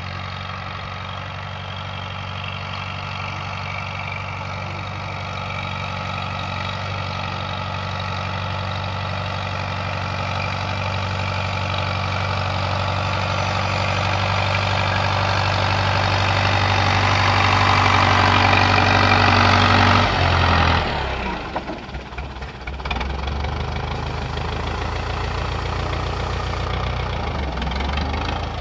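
Old wheeled tractor's engine running steadily under load as it pulls a four-row corn planter, growing louder as it approaches. About two-thirds of the way through the sound changes abruptly to a quieter, less even running.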